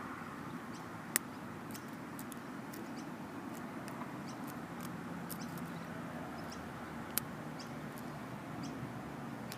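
Lock pick and tension wrench working the pin stack of an Abus 85/50 brass padlock: faint scattered clicks and scrapes, with two sharper clicks about a second in and about seven seconds in, over a steady background hum.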